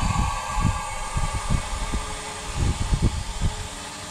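Compressed air hissing steadily into the rear air-ride suspension bags through the leveling valve as the suspension comes up out of the dump position, with irregular low thumps underneath.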